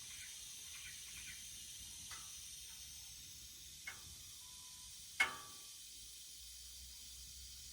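Refrigerant hissing steadily out of a leaking air-conditioning condenser on a Ford E150 van, a thin high hiss. A couple of light clicks and one sharp knock about five seconds in.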